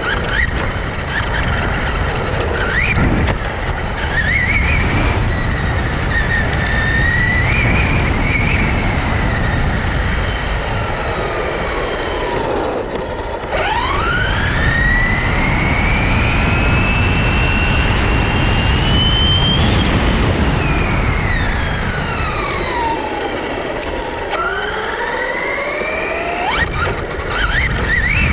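Traxxas Rustler brushless electric RC car's motor and gears whining, rising in pitch as it speeds up and falling as it slows, several times over, with steady rushing wind and tyre noise.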